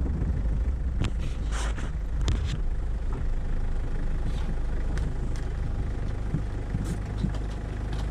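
Car driving: a steady low rumble of engine and road noise, with scattered short clicks and knocks.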